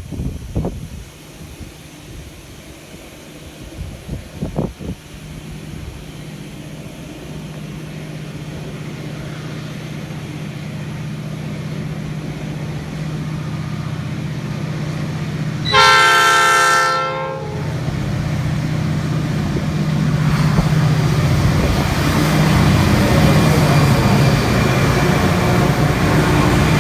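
Diesel locomotives of a freight train approaching, their engine drone growing steadily louder, with one horn blast of about a second and a half a little past the middle, then the locomotives passing close. Wind buffets the microphone in the first few seconds.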